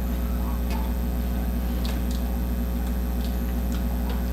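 Light, irregular clicks and ticks of electrical wire being handled and routed, over a steady low hum.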